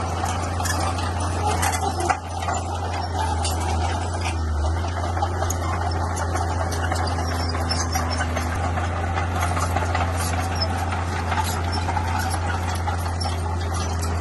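Bulldozer at work: its diesel engine runs steadily under load, with scattered short metallic clanks.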